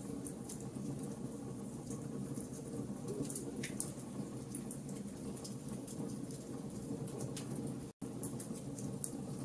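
Wood fire in a fireplace crackling: a steady low rustle with scattered sharp pops and snaps. The sound cuts out completely for an instant about eight seconds in.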